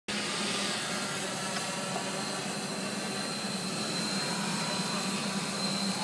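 Multirotor camera drone hovering: a steady propeller hum with a thin high whine that holds one pitch.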